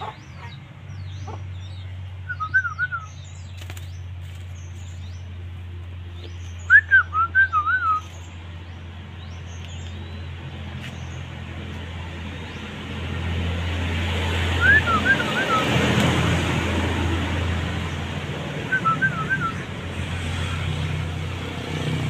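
Common flameback woodpecker giving short chattering calls, four bursts of a few quick notes, the loudest about seven seconds in, over fainter high twittering of other small birds. A rushing noise swells and fades midway.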